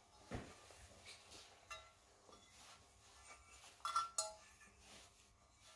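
Faint clinks and knocks of a cleaned aluminium crankcase half from a Puch Maxi E50 engine being handled and turned over. A dull knock comes near the start, and two sharp metallic clinks with a brief ring come about four seconds in.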